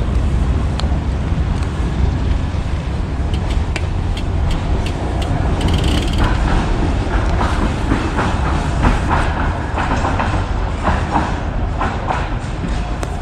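Road bike riding along a path, heard from a camera on the bike or rider: a steady low rumble of wind on the microphone and tyres on the surface, with scattered ticks and rattles.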